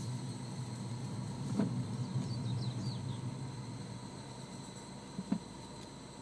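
Mini Cooper R56 running with a steady low hum, with a short knock about one and a half seconds in and another near the end: the abnormal noise that the owner places near the shaft.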